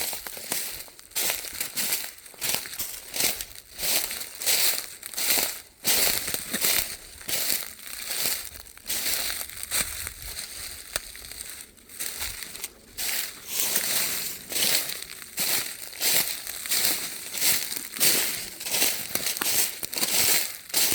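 A hiker's footsteps crunching through dry fallen leaves, a steady walking pace of roughly one to two crackling steps a second.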